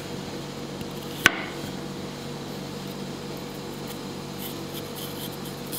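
Fresh turmeric root being peeled with a knife: one sharp knock of the knife on the cutting board about a second in, then faint soft scraping near the end, over a steady low hum.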